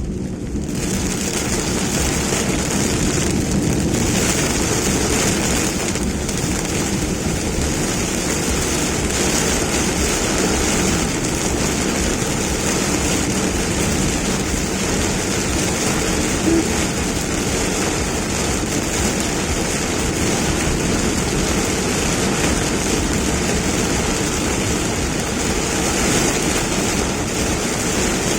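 Steady highway driving noise in rain: a constant low rumble of tyres and engine under an even hiss of rain and wet road spray.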